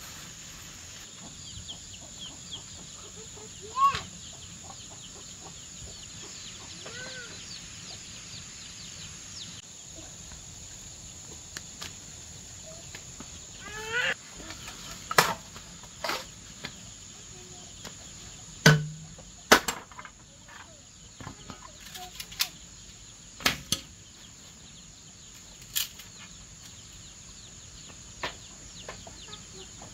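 Bamboo poles being handled and knocked against each other and against the wooden frame, a handful of sharp knocks mostly in the second half. Under them runs a steady high insect drone, with a few short bird calls in the first half.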